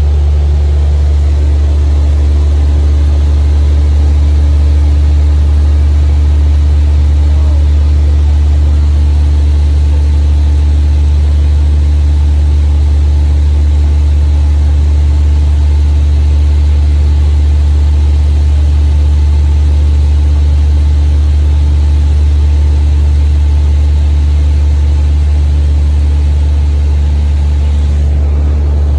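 Steady, loud drone of a light high-wing airplane's engine and propeller in level flight, heard inside the cabin.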